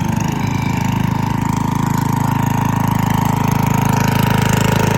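Riding lawnmower's small engine running steadily at close range, an even, rapid firing pulse with a steady whine over it.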